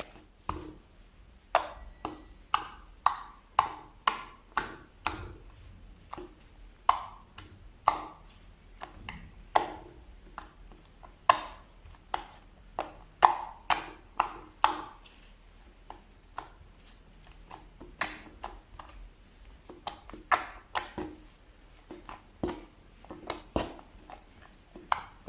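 Slime being handled, making a long irregular series of sharp pops and clicks, roughly one or two a second, with a few short pauses.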